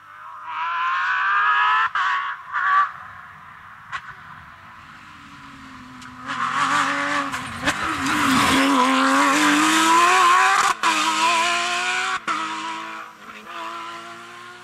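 Porsche 911 rally car's flat-six engine at high revs, its note rising and breaking off at gear changes. A short run about half a second in, then loudest as the car passes from about six seconds in, easing off near the end.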